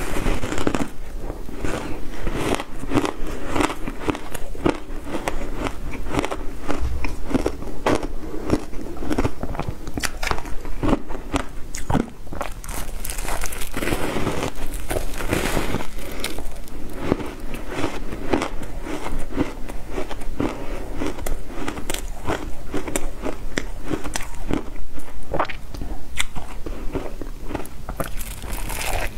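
Shaved ice being bitten and chewed right at the microphone, a continuous run of loud, crisp crackling crunches.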